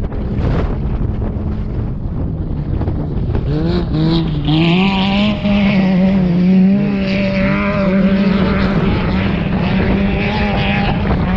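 Off-road race vehicle engine running hard over wind noise on the microphone, its note climbing about three and a half seconds in and then holding high.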